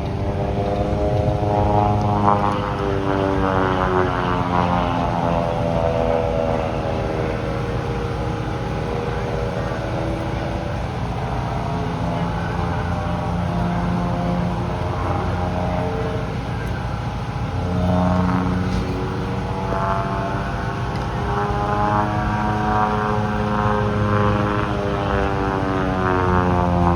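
Propeller airplane engine overhead, its pitch swinging slowly up and down several times as the plane manoeuvres.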